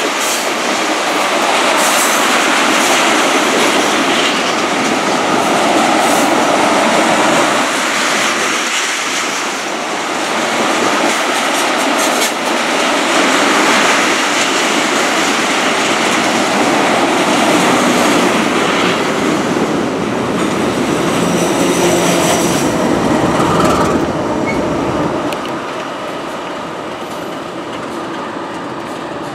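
Freight train of ethanol tank cars rolling past, steel wheels clicking over rail joints, with some high-pitched wheel squeal. The noise eases a few seconds before the end as the last cars go by.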